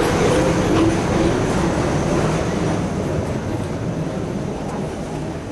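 Garbage compactor truck's engine running close by, then fading steadily as the truck moves away.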